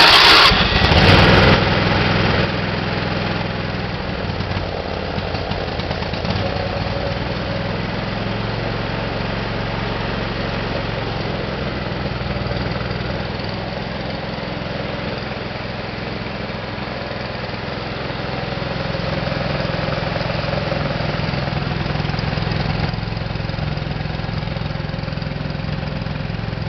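Craftsman GT5000 garden tractor's twin-cylinder engine firing up on fresh spark plugs and running at throttle, loudest for the first couple of seconds and then running steadily.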